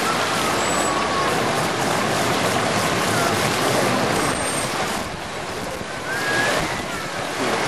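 Steady rushing of churned pool water as a killer whale swims close along the wall, with crowd voices underneath.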